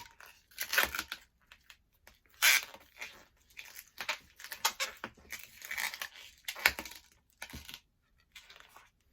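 Long latex modelling balloon being squeezed and worked by hand, rubbing and squeaking in irregular bursts as the air is pushed down along it.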